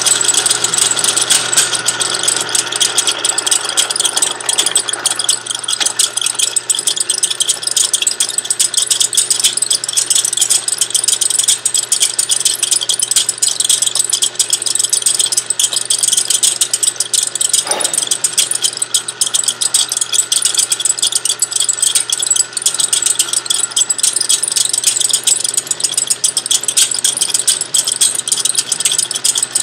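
Benchtop drill press running, its bit drilling out a broken bolt in a turbocharger housing flange: a steady, dense, high-pitched clicking, with one short knock a little past halfway.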